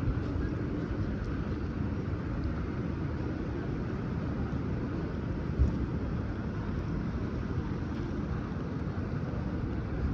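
City street ambience: a steady low rumble of traffic, with a single short knock about halfway through.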